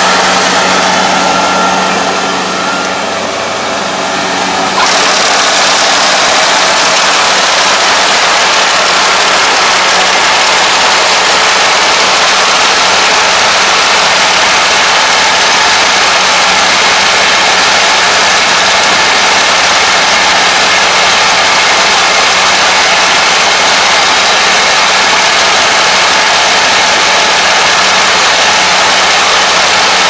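Kubota ARN460 combine harvester running while reaping rice: a steady diesel engine hum under the dense clatter and whir of the cutting and threshing machinery. About five seconds in the sound abruptly gets louder and fuller, then stays steady.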